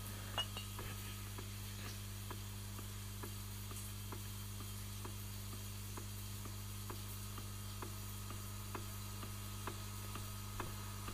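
A clock ticking steadily, about two ticks a second, over a steady low hum.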